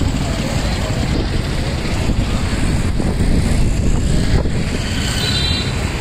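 Steady roadside noise of vehicle rumble with wind buffeting the microphone.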